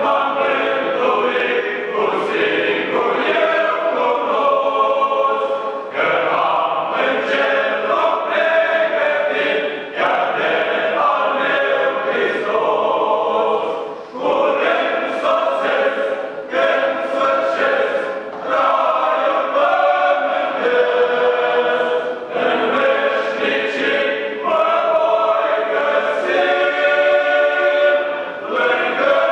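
Men's choir singing a cappella in several voice parts, in held phrases with short breaks between them.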